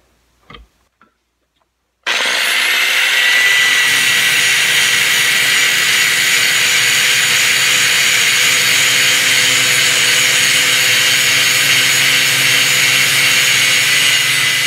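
Electric angle grinder switching on about two seconds in with a brief rising whine, then running steadily and loud while grinding down a stainless steel pump-valve seat clamped in a vise.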